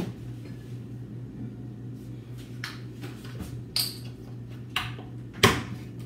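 Steady low room hum with a few scattered knocks and clinks of kitchen items being handled off to one side, the loudest about five and a half seconds in.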